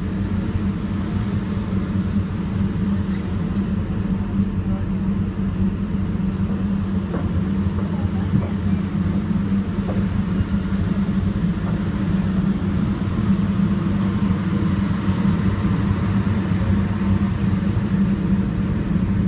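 The passenger ferry Île de Vacances Premier's engines running, a steady low drone heard on the open deck by the exhaust stacks.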